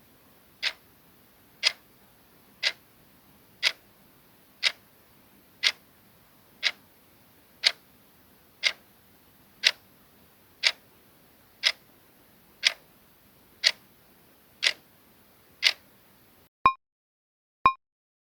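Clock ticking steadily, one tick a second, as a countdown timer runs out. Near the end the ticking and its faint hiss stop, and the alarm starts: two short high beeps a second apart, signalling that time is up.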